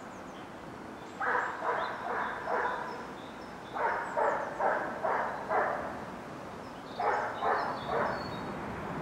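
A dog barking in three quick runs of four, five and three barks, with short pauses between the runs.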